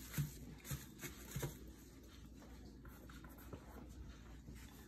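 Plastic wrap rustling softly as it is pressed and tucked around dough on a metal baking sheet, a few faint crinkles in the first second and a half.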